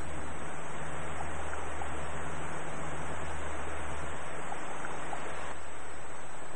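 Steady rushing of water churned by a ship's propeller, with a low steady hum underneath.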